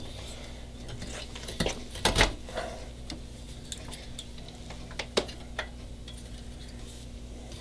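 Scattered light metal clinks and knocks as a swivel rocker's metal seat frame is set onto the swivel base, its bolts fitted through the spring plates. The loudest knock comes about two seconds in, with a few more around five seconds.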